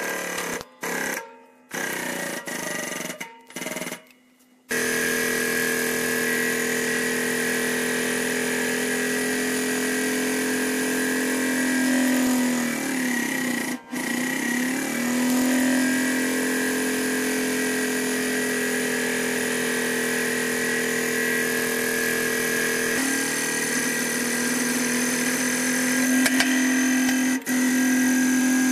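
Hydraulic press pump motor running with a steady hum and whine. It cuts out and back in several times in the first five seconds, then runs on. Around the middle its pitch sags and recovers as the ram bears down under load.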